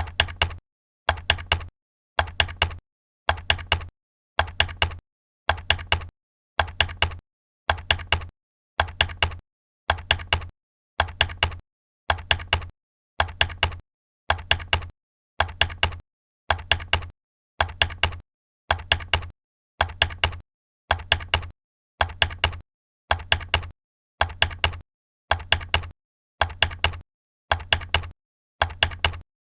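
Computer keyboard typing in short bursts of several quick keystrokes, about one burst a second, with dead silence between bursts and an even, loop-like repetition.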